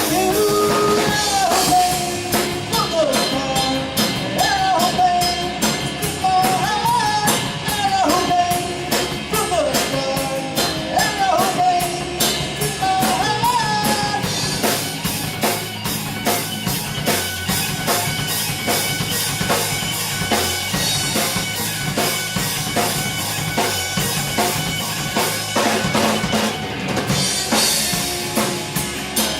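Live rock band playing with a steady drum-kit beat. In the first half a lead line slides up and down in pitch over the band; after that the drums and band carry on.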